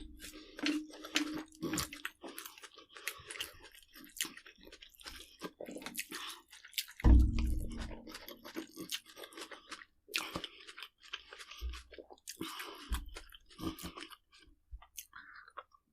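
A person chewing crunchy food close to the microphone: irregular crisp crunches and clicks, with one heavier thump about seven seconds in.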